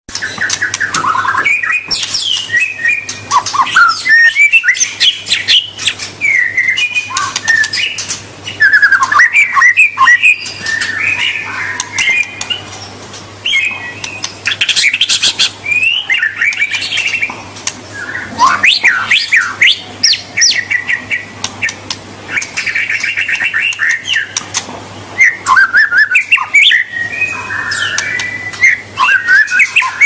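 White-rumped shama (murai batu) singing a long, varied song of rapid trills, whistled phrases and sliding notes, with short pauses between phrases.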